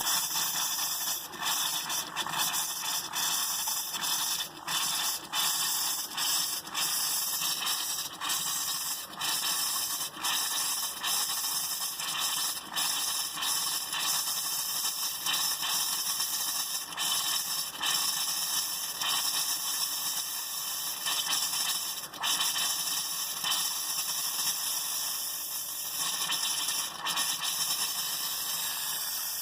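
Compressed air hissing out of an open faucet, spitting and sputtering water in irregular spurts as the camper's water lines are blown out.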